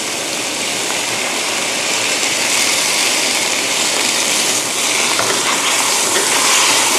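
Water poured from a metal bowl into a hot wok of stir-fried vegetables and tofu, hitting the pan with a steady hissing sizzle that grows a little louder.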